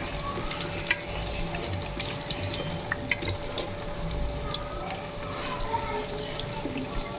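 Batter-coated cauliflower florets deep-frying in hot oil in a kadhai: a steady sizzle with many small crackles and pops as the batter bubbles.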